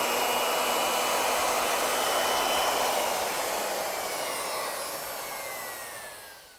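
Router spinning a surface planing bit on an ornamental mill, running steadily at speed with a high whine. About three seconds in it is switched off and winds down, its pitch falling as it fades away.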